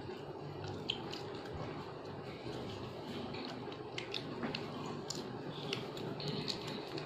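Biscuits being crunched and chewed, with scattered small crisp clicks over steady background noise.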